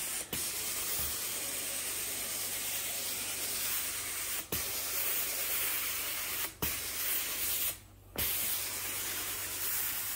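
Carpet pre-spray being sprayed onto carpet from a sprayer: a steady hiss, broken by four brief stops, the last and longest about eight seconds in.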